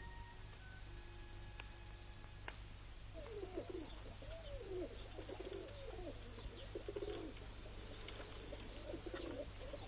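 Pigeons cooing: a run of soft, warbling coos beginning about three seconds in and continuing, over a low steady hum.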